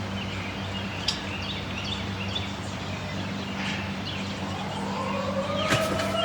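Small birds chirping over a steady low hum, then, about five seconds in, an outdoor tornado warning siren begins winding up, its pitch rising as it starts a test.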